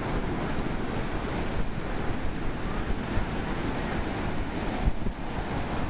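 Ocean surf washing in steadily, with wind buffeting the microphone in a low rumble.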